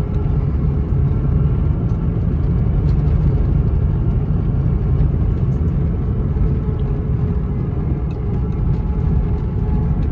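Buick LeSabre driving along a dirt forest track, heard from inside the car: a steady engine and road rumble with a few faint clicks and rattles.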